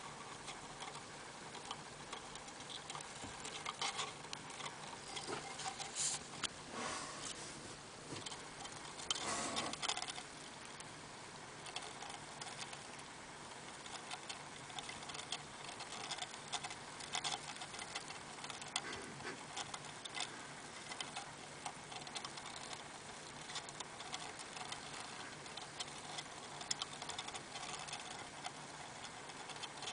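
Dwarf hamster gnawing at a millet spray, cracking the seeds in quick, irregular little clicks, with rustling of wood-shaving bedding that is loudest about nine seconds in.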